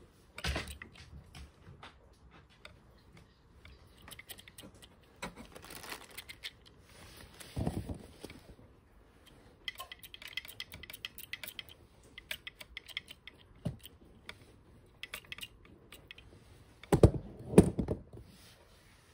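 Irregular clicks, taps and rustling from handling a small battery-powered mini chainsaw and its packaging in a cardboard box, with two louder knocks close together near the end.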